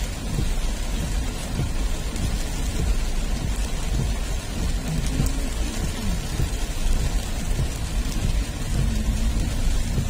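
Heavy rain falling on a car's windscreen, a steady hiss of drops over a continuous low rumble.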